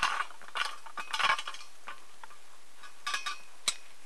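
Green ume plums being taken from a stainless steel tray and set into a glass jar over a layer of sugar: several short scraping, rattling handling noises and soft knocks, then one sharp clink near the end.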